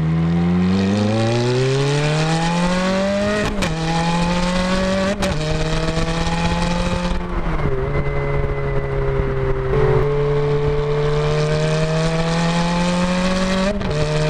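Ferrari F430's 4.3-litre V8 accelerating hard through its automated-manual gearbox. The engine note climbs, then drops abruptly at each quick upshift, with a sharp snap at some shifts: about three and a half and five seconds in, again around eight seconds, and near the end. In between, it holds a steady note.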